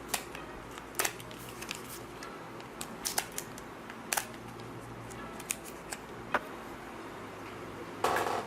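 Light, irregular clicks and taps of a laptop memory module being handled and fitted into its slot as the second 8 GB DDR3 RAM stick is installed, with a louder short clatter near the end.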